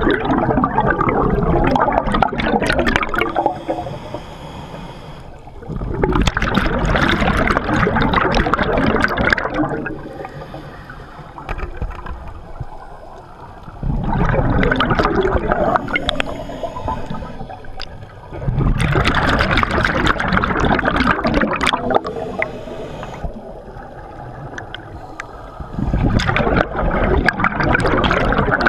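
Scuba diver's exhaled bubbles gurgling out of the regulator underwater in five long bursts, one with each breath about every six seconds, with quieter stretches between them as the diver inhales.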